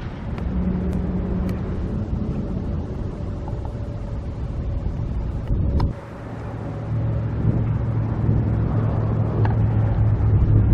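Wind rumbling on the microphone, with a steady low engine hum underneath. The rumble dips briefly about six seconds in.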